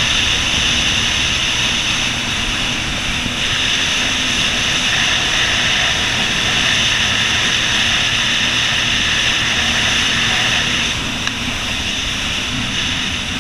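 Jet ski running at speed: a steady, loud engine and water-jet rush with spray hissing off the hull. The sound eases a little about eleven seconds in.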